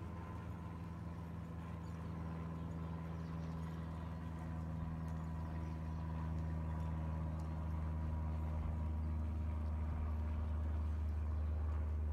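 A steady low engine drone that grows slowly louder.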